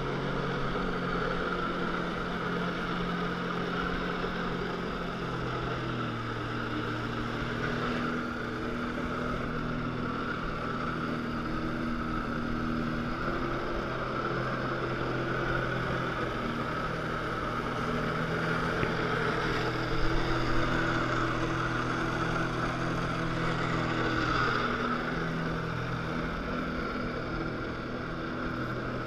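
Personal watercraft engine running hard to pump water through the hose to a Flyboard, its engine speed stepping up and down several times, over a steady rush of water and wind.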